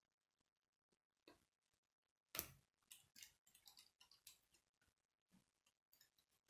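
Plastic K'nex connectors and rods clicking as they are handled and snapped together by hand: one sharp snap about two and a half seconds in, then a quick run of smaller clicks.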